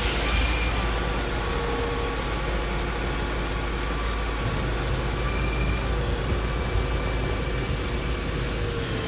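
A grapple saw truck's engine running steadily under heavy, pouring rain.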